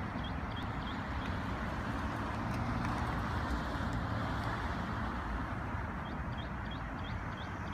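Cars passing on a road, a steady rush of tyre and engine noise that swells about two and a half seconds in as a car goes by. A bird chirps rapidly, short high chirps about four a second, at the start and again near the end.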